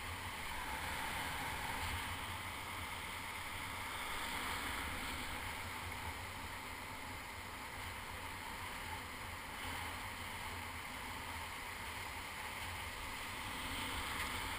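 Wind buffeting the microphone over the steady wash of breaking surf in shallow water.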